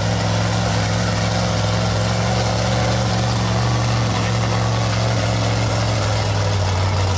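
Lifted mud truck's engine running at a steady low drone while the truck sits in the mud, dropping a little in pitch near the end.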